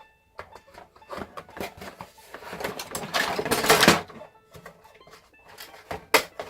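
Toy packaging being handled and pulled apart: scattered clicks and knocks, with a louder stretch of rustling and scraping in the middle.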